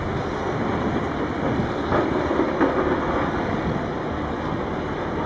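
Steady rumble of quarry machinery at work: a Sandvik CM 1208i mobile crusher running, with diesel loaders and trucks. A couple of short, sharp clatters of rock come about two seconds in.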